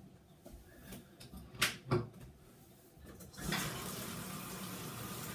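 Two sharp knocks, then about three and a half seconds in a bathtub tap is turned on and water runs steadily into the tub.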